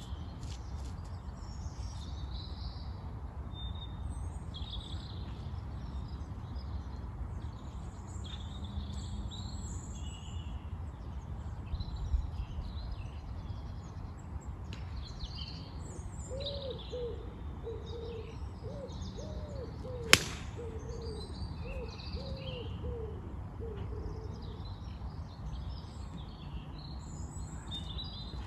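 A single sharp crack of a pitching wedge striking a golf ball, about two-thirds of the way in, over a steady low rumble and songbirds chirping. A bird's low cooing call repeats several times around the strike.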